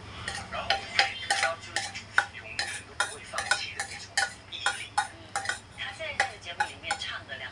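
Cutlery clinking and scraping against a dish while eating, with many short irregular clinks, a few each second.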